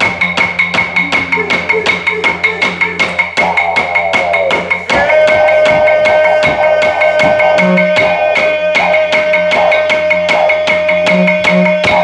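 Music with a quick, even clicking beat of wood-block-like percussion, about four or five strokes a second, over a steady low drone. A held higher tone comes in about five seconds in and carries on to the end.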